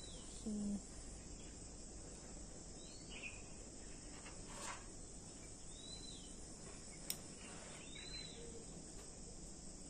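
Steady high insect chirring with a bird's short arched call repeated every two to three seconds. A brief low hum comes about half a second in, and a couple of faint clicks of a fork and spoon on a plate follow.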